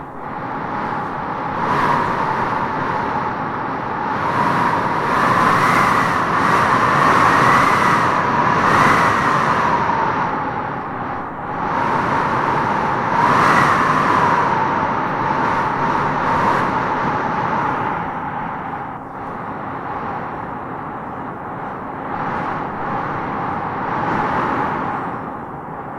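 Wind blowing in gusts, swelling and easing, with a whistling howl that glides up and down in pitch several seconds in and again about halfway through.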